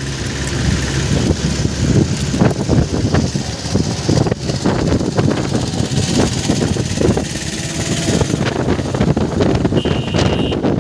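A sleeper coach bus driving along a road, heard from inside by a side window: continuous engine and road rumble with gusty wind noise and rattles. A brief high-pitched tone sounds near the end.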